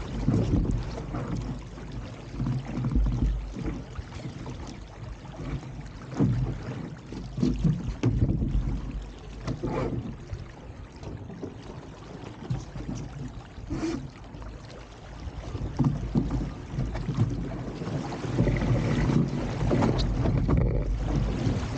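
Wind buffeting the microphone and water rushing along the hull of an RS300 sailing dinghy under way, rising and falling with the gusts, with a few brief knocks.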